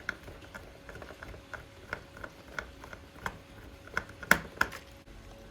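Small, irregular plastic clicks and knocks from handling and fitting the parts of a toy train's plastic shell, with two sharper knocks near the end.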